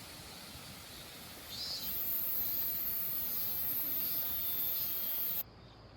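A high, steady insect buzz over a steady outdoor hiss, starting about one and a half seconds in and cutting off suddenly shortly before the end.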